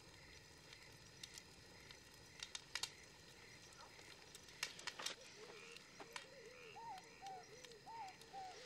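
Faint night ambience: a campfire crackling with scattered sharp pops, and from about halfway, short rising-and-falling chirps from an animal, repeating about twice a second.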